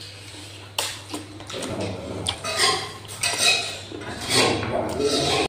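Close-up eating sounds: wet chewing and lip-smacking on duck meat and rice, with fingers scraping and clinking on a steel plate. There is a sharp clink just under a second in.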